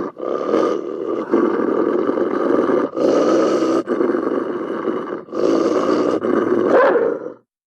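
Ethiopian wolf calling: a run of loud, rough calls, each about one to two seconds long with short breaks between them, stopping about seven seconds in.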